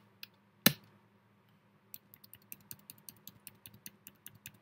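Computer keyboard keystrokes: one sharp key press near the start, then from about two seconds in a fast run of light key taps, several a second.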